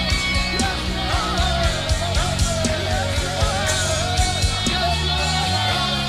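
Live gospel praise-and-worship music: a singer's wavering melody over sustained bass notes and a drum beat.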